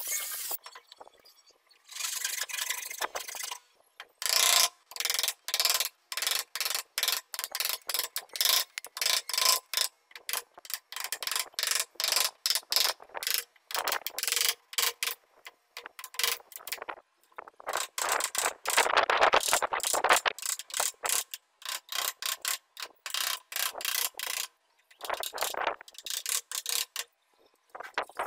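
Hand tools scraping wood in short, quick strokes, about one to two a second with brief gaps between them: a steel chisel paring a small clamped wooden block, and later a file rasping the edge of a small wooden disc. There is one longer unbroken stretch of scraping about two-thirds of the way through. A power sander's steady whir cuts off just at the start.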